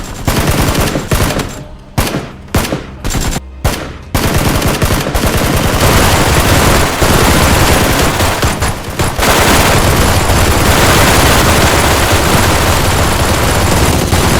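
Machine-gun fire sound effect: a few short bursts of automatic fire, then near-continuous rapid firing from about four seconds in.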